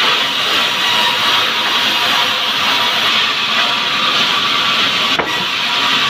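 Sawmill saw running and cutting into a log as it is fed through: a loud, steady, hissing whine, with a momentary break about five seconds in.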